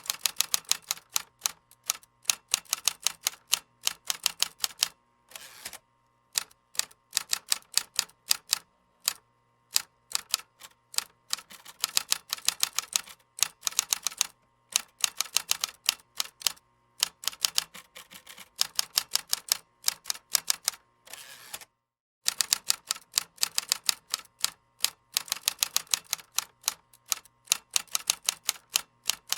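Computer keyboard typing: fast runs of key clicks lasting a few seconds each, separated by short pauses, with one clear break about three-quarters of the way through.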